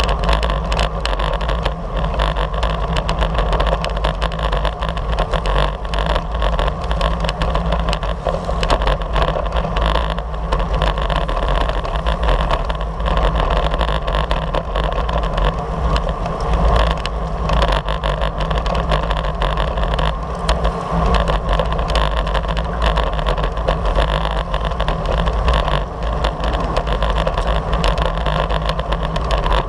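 Steady rush of wind and tyre noise picked up by an action camera on a road bike riding at race speed in a pack, with a heavy low rumble of wind buffeting the microphone.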